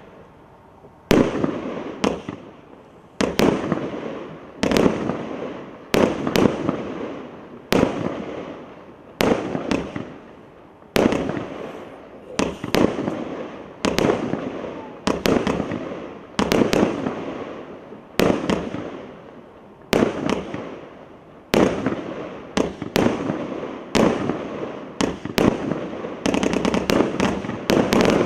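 A 31-shot fireworks cake firing one shot about every second or so. Each shot is a sharp bang followed by a fading noisy tail. The shots quicken into a rapid volley near the end.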